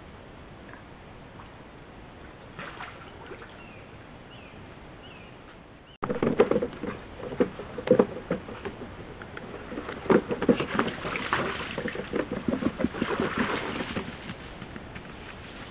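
Steady flow of a shallow creek with a few faint bird chirps. About six seconds in, a louder stretch begins with many close knocks, scuffles and low pulses as North American river otters move about on the wooden boardwalk planks right by the microphone.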